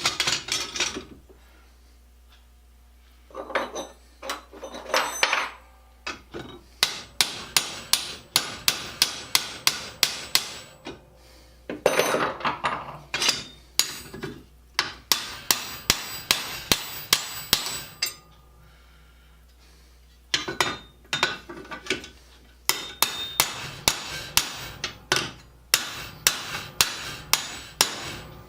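Hammer blows peening steel rivets to join the treadle grinder's treadle parts, struck in quick steady runs of about two to three blows a second with two short pauses.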